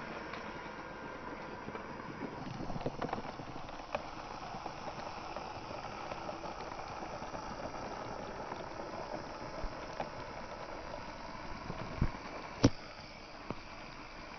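Small DC motor of a homemade matchbox toy tractor whirring as it drives, its plastic wheels rolling on concrete, with a few light clicks and two sharper knocks near the end.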